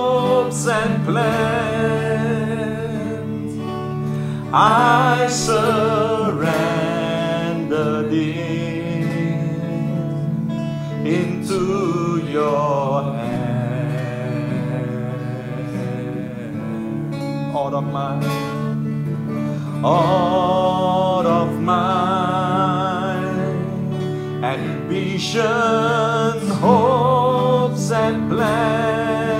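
Congregational praise song: one voice sings long held lines with vibrato over a steady guitar accompaniment.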